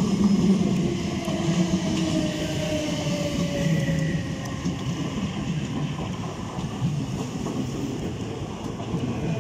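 Two coupled South Western Railway Class 455 electric multiple units running in close past the platform as they arrive: a steady rumble of wheels on rail, with a whine that falls in pitch over the first few seconds as the train slows.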